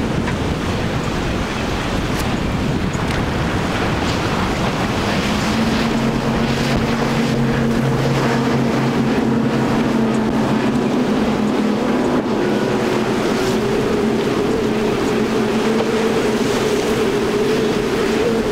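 Outboard engines of center-console boats running at speed through the inlet, over the wash of waves and spray and wind on the microphone. An engine hum comes in about five seconds in, and a higher engine tone rises slightly toward the end.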